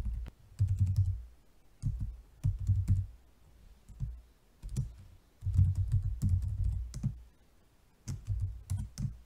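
Typing on a computer keyboard in short bursts of keystrokes, with pauses in between.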